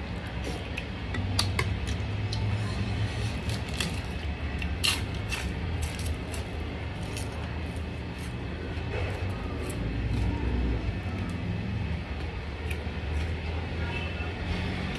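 Eating sounds: chewing, with scattered sharp clicks of a metal spoon and fingers against a plate, the loudest click about five seconds in. A steady low hum runs underneath.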